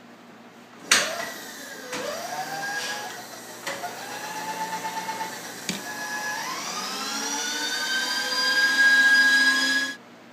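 Precision Matthews PM-932M milling machine's spindle motor switched on several times, each start a click followed by a whine rising in pitch as it spins up. The last run climbs to a steady high whine and cuts off suddenly near the end.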